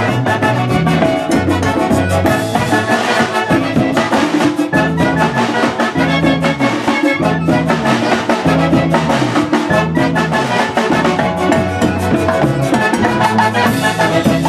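Band of saxophones and other brass horns playing with timbales, congas and electric bass: upbeat Latin dance music with a repeating bass line under the horns and steady percussion.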